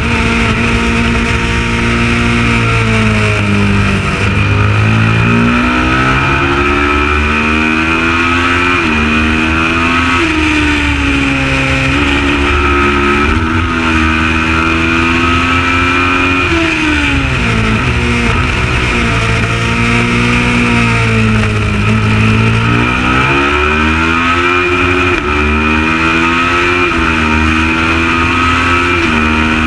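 Kawasaki ER650 parallel-twin race motorcycle engine under hard racing use. The revs climb and fall over and over, dropping sharply about four times.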